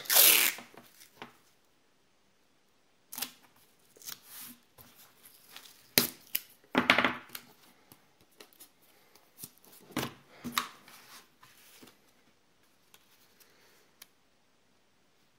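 Masking tape pulled off its roll in a loud rip, then scattered short rustles, scrapes and knocks as tape strips are pressed down onto a sheet and the sheet is lifted and set back on the table.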